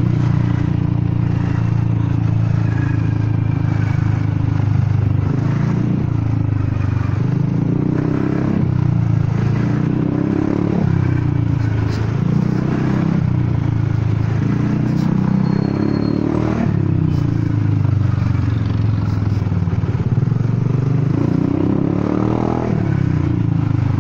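Honda Forza 300 scooter's single-cylinder engine running through an exhaust the rider says has cracked. Its pitch rises and eases back again and again with short throttle openings.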